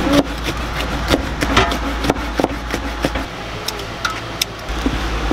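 Scattered sharp knocks and clicks of kitchen prep work with knife, scissors and sausage over a steamer and cutting board, over a steady low hum that drops out briefly past the middle.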